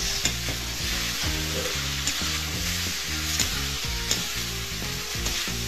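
Poha with onion and capsicum sizzling in a hot steel kadhai as a slotted steel spatula gently stirs it, with a few light clicks of the spatula against the pan. Soft background music with low notes plays underneath.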